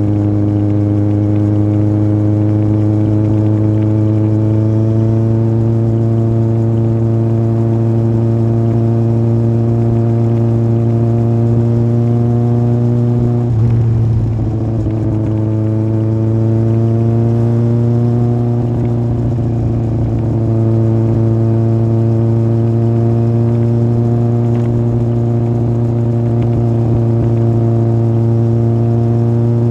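Yamaha Fazer 1000's inline-four engine through an aftermarket MIVV exhaust, pulling steadily under way with its pitch slowly rising. About halfway through it briefly drops and changes note, as in a gear change, then climbs again and settles into a steady cruise.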